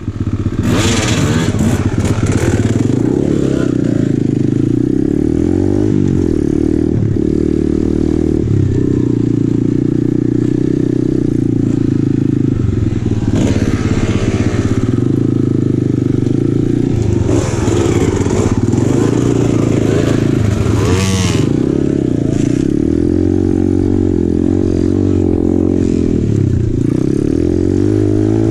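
Apollo RFZ 125cc pit bike's single-cylinder four-stroke engine running under way, its pitch repeatedly rising and falling as the throttle is opened and closed. Scattered clatter and scraping come from the bike going over the rough trail.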